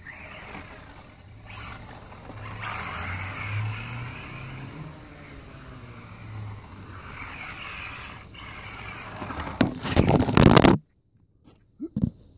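Carisma GT24R micro RC car's electric motor whining, rising and falling in pitch, with the tyres rolling on block paving as it drives around. Near the end comes a loud scraping rustle, after which the sound cuts out.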